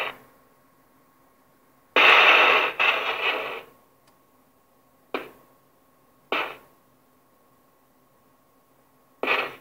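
CB radio receiver crackling with bursts of static from lightning strikes: a long crash about two seconds in, two short ones around the middle and another near the end, over a faint steady hum from the set.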